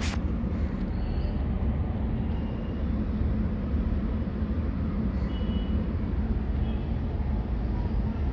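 Steady low background rumble, with a sharp click at the start and a few faint, short high-pitched chirps about a second in and again around five seconds in.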